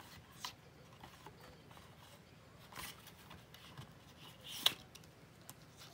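Faint handling noise from makeup palettes being picked up and sorted: soft rustling and a few light taps, with one sharper click about two-thirds of the way in.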